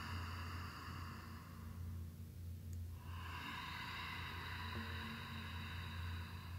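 Slow, audible breathing during a yoga flow: a long breath, a pause of about a second, then another long breath, over a low steady hum.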